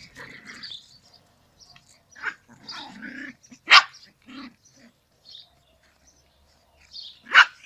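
Several Yorkshire terriers play-fighting, growling in short irregular bouts, with two loud sharp barks, one about four seconds in and one near the end.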